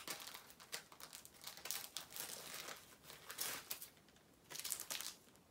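Clear plastic packaging crinkling as small wrapped merchandise items are handled and sorted, in irregular rustles with a brief lull about four seconds in.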